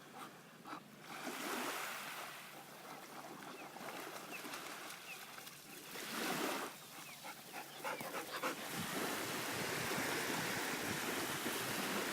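Water splashing and small waves lapping as a golden retriever moves through shallow water. From about two-thirds of the way in, a louder, steadier rush of wind on the microphone takes over.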